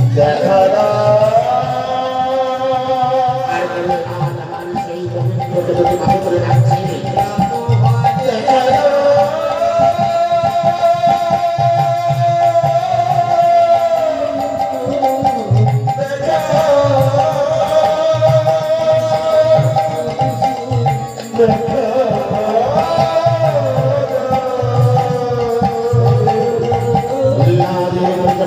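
Lila kirtan music: a hand drum keeps a steady beat under a long, held melody whose notes slide up and down.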